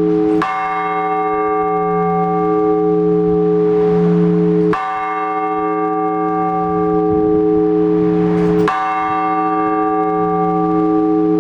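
A single Orthodox church bell struck slowly, three strikes about four seconds apart, each ringing on into the next: the measured ringing that calls the faithful to the all-night vigil.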